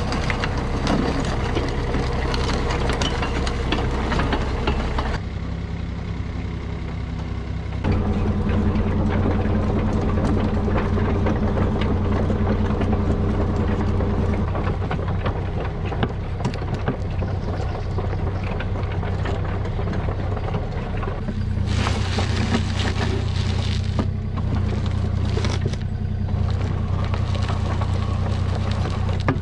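Excavator's diesel engine running steadily, its note shifting about five seconds in and again near eight seconds, with extra rattling noise for a few seconds past the twenty-second mark.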